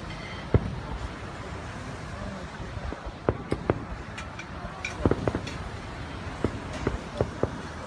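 Fireworks salute going off: a run of sharp, irregular bangs and pops, bunched about three seconds in and again around five seconds, over steady low background noise.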